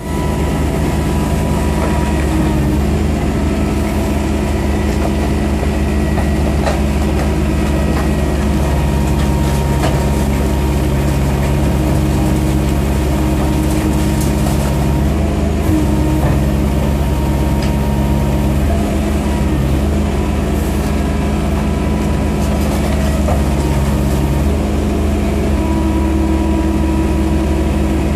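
Ecotecnica Orca S5250P car baler running: a steady heavy engine drone with hydraulic tones that step in and out and shift in pitch every few seconds as the machine works, with a few light knocks.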